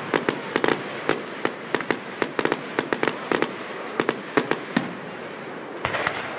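Aerial fireworks exploding: a quick, irregular run of sharp bangs and pops, about four a second, over a steady hiss, with a short burst of crackling near the end.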